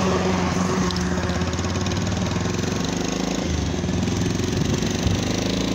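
Vehicle engine running steadily while driving along a road, with road and wind noise; the engine note shifts a little past halfway through.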